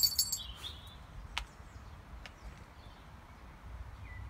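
Outdoor background with a steady low rumble. A brief, high-pitched chirp opens it, the loudest sound here, and a couple of light clicks follow about a second and two seconds in.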